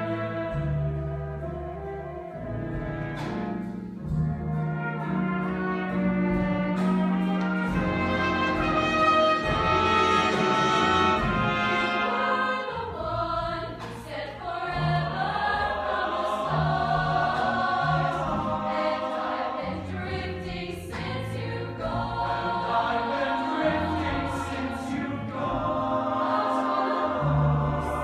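Show choir singing in harmony over an instrumental accompaniment with a steady bass line, with the musical phrases swelling and shifting every few seconds.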